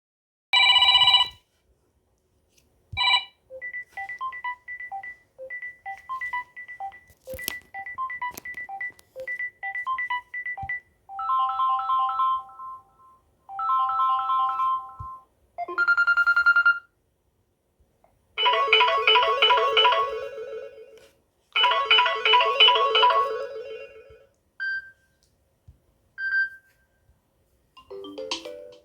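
Samsung Galaxy M51 One UI 4.1 ringtones played one after another, each only a short snippet of a few seconds before the next one starts after a brief pause. Some are single chimes, others short repeating two- or three-note melodies or denser chord patterns.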